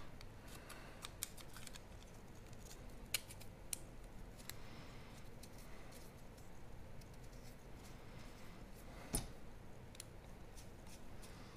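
Carbon-fiber drone-frame plates and arms being handled and screwed together: faint, scattered light clicks and taps, the loudest about nine seconds in.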